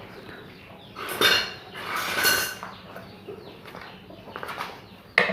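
Metal clinking and scraping from a bearing puller being handled: two rasping clinks with a metallic ring, then a sharp click near the end.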